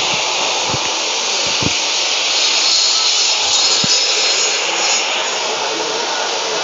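Homemade bone-cutting saw, a Maktec 2000-watt motor driving a 7-inch, 100-tooth Makita aluminium-cutting blade, running steadily with an even hiss.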